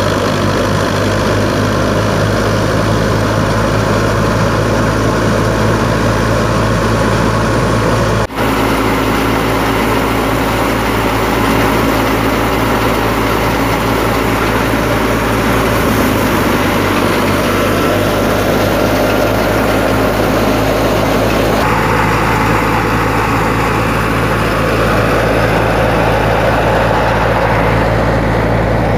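Fiat 640 tractor's diesel engine running steadily under load, driving a wheat thresher, mixed with the thresher's own running noise. There is a brief dropout about eight seconds in.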